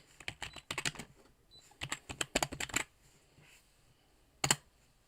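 Typing on a computer keyboard: two quick runs of keystrokes, then a single louder key press about four and a half seconds in.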